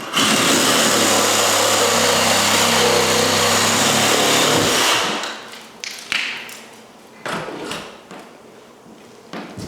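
A power tool running at a steady speed for about five seconds, then stopping. A few short knocks follow.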